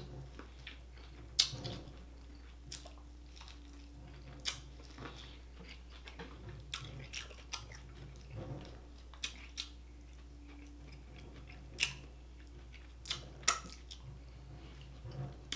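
Quiet close-miked mouth sounds of a person eating: chewing with scattered sharp wet smacks and clicks, a couple of them as he licks his fingers near the end. A low steady hum runs underneath.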